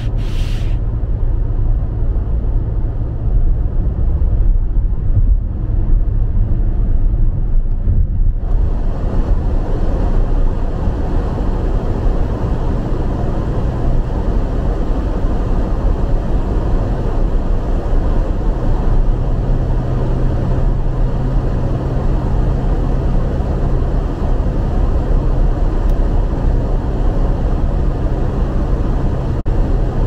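Road noise inside a moving car's cabin on a snowy, wet highway: a steady low rumble of tyres and engine hum. A brighter hiss joins in about eight seconds in and stays.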